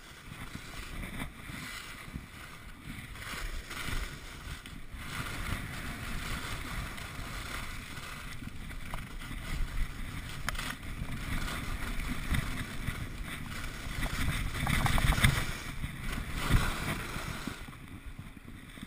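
Skis scraping and hissing over hard-packed snow on a downhill run, with wind rumbling on the microphone. It swells to its loudest about 15 seconds in and eases off near the end as the skier slows.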